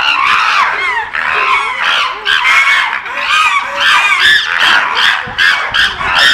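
Several chimpanzees screaming, loud high-pitched screams rising and falling and overlapping in quick succession: the agitated screaming of a chimpanzee fight.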